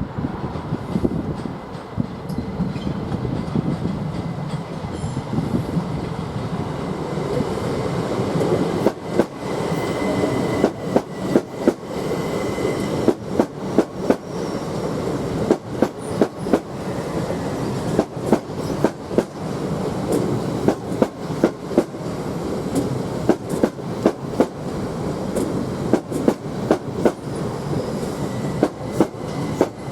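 A train running past with steady wheel rumble. From about eight seconds in, its wheels click over the rail joints in regular pairs as bogie after bogie goes by, on and on down a long train.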